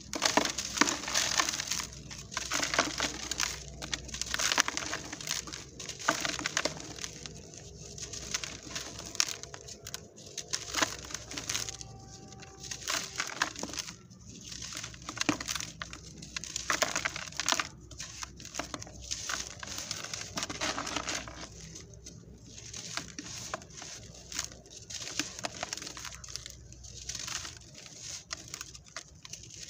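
Dried sand-and-cement cakes broken and crumbled by hand in a plastic tub: dense crunching and crackling with sharp cracks as the pieces snap. Near the end it turns softer as the powder sifts through the fingers.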